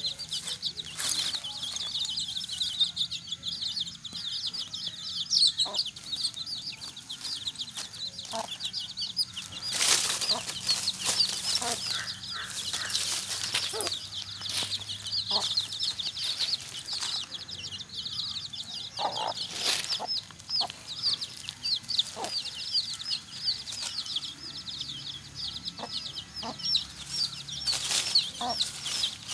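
Chickens calling: short clucks scattered over a dense, unbroken stream of rapid high chirping, with a few loud rustling bursts along the way.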